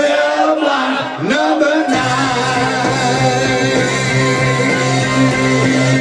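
A man singing a blues song live to his own guitar. For the first two seconds the voice slides and bends almost alone, then the guitar comes back in about two seconds in with a steady, repeating low note and chords under the singing.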